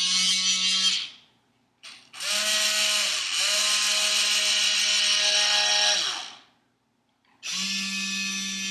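Small DC gear motors of an OWI Robotic Arm Edge whining as the arm moves. There are three runs: a short one that stops about a second in, a long one from about two to six seconds with a brief stop-start partway, and another that starts about seven and a half seconds in.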